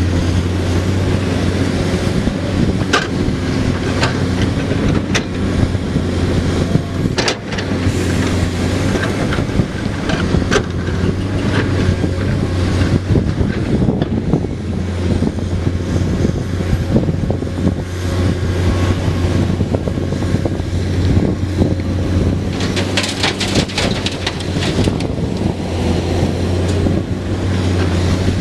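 Komatsu PC210 excavator's diesel engine running steadily, with scattered clanks and rattles of gravel loading into a truck and a dense run of rattling near the end.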